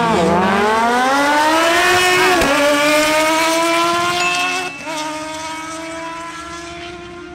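Kawasaki Z H2 and Kawasaki Ninja Z1000SX inline-four sport bikes racing at full throttle down a drag strip. The engine pitch climbs and drops sharply at each upshift, twice, then holds steady and fades from about five seconds in.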